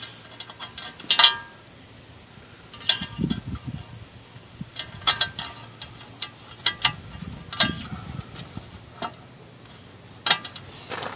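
Metal skid plate on a Yamaha WR250R being pushed and shifted against the bike's frame during a test fit, giving a few sharp metallic clicks with a short ring, a second or two apart, with quieter rubbing and rustling between.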